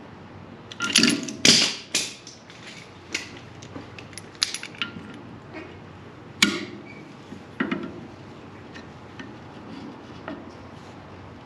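Metal tools and parts clanking and knocking during hand work on a sawmill's wheel. The knocks are irregular, with a loud cluster about a second in and single sharp strikes later.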